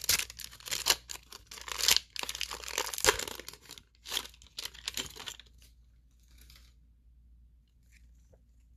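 Foil wrapper of a 1992 baseball card pack being torn open by hand: a run of sharp crinkling and tearing for about five seconds, then only faint handling sounds.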